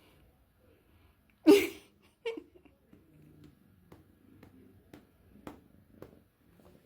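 A cat giving one short, loud cry about a second and a half in and a shorter one just after, followed by a few faint clicks.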